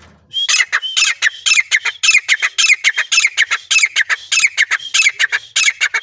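Grey francolin calling: a long, rapid run of loud, harsh repeated notes, about five a second, starting just after the beginning and breaking off near the end.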